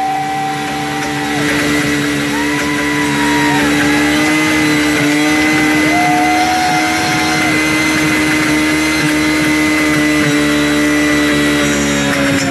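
Snowmobile engine running steadily with no oil in it, starved of lubrication and smoking heavily. It holds a high, steady whine, and wavering higher tones rise and fall above it now and then.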